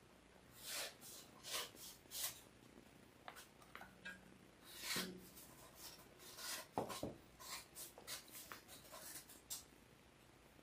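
Handling noises from a resin printer vat wrapped in a heater band being turned over in the hands: soft rubbing and light taps, with a knock about seven seconds in as the vat is set down on the table.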